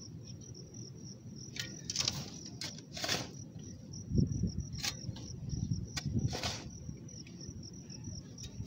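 A steady high insect trill in the grass, with scattered scrapes and a few dull thuds of soil being dug and moved at the edge of a grave, the thuds heaviest about four to six and a half seconds in.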